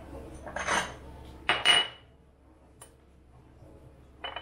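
Cutlery and dishware clinking and clattering on a kitchen counter: a light scrape, then two sharp clatters with a brief ringing about a second and a half in, and a lighter clink near the end.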